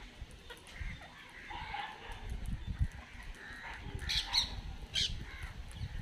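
A feeding flock of rose-ringed parakeets calling: scattered chirps throughout, with a few sharp, louder screeches about four and five seconds in, over a low rumble.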